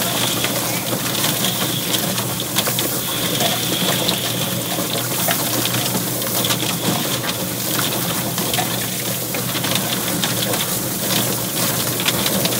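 Drum-style rotary chicken plucker running: a steady motor hum under the spray of a garden hose into the steel tub, with frequent irregular knocks as the scalded chicken tumbles against the rubber plucking fingers and its feathers are stripped off.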